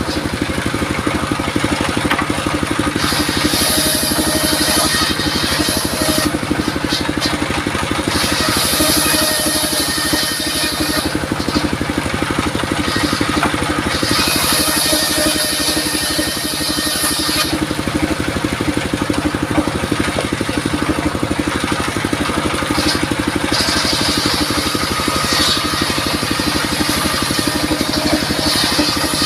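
Circular sawmill running steadily, its blade cutting through durian wood in about four passes of a few seconds each, with a brighter hissing whine during each cut and short breaks between.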